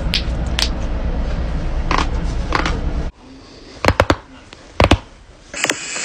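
Joints being cracked by hand. A few faint clicks sound over a steady low rumble, then a sharp triple pop about four seconds in and a double pop near five seconds.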